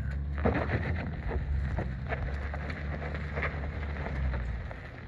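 Wind buffeting the microphone in a low rumble that eases off near the end, with scattered small clicks and rustles over it.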